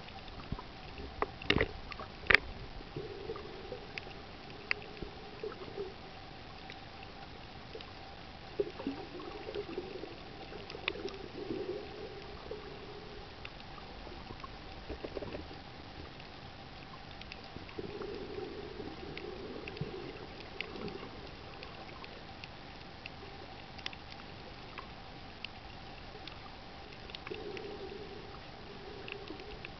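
Underwater sound over a shallow reef: scattered sharp clicks and crackles, a steady hum, and muffled swishes of water every few seconds.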